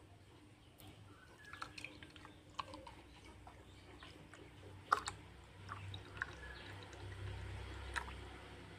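Blended water-apple juice poured in a thin stream into a glass tumbler: a faint liquid trickle and drip with scattered small clicks, a couple of sharper ticks about five and eight seconds in.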